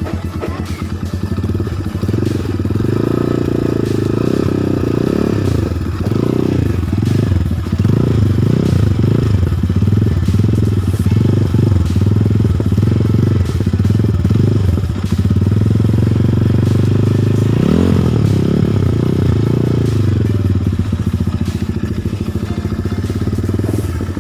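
Rusi Classic 250 motorcycle exhaust through an SC Project muffler with the dB killer fitted, idling and then revved again and again in quick blips. A sharper rev comes near the end before the engine settles back to idle.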